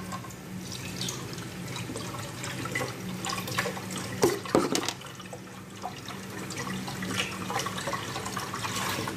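Milk pouring in a steady stream from a one-litre carton into a cooking pan, splashing and trickling, with a brief louder knock about four and a half seconds in.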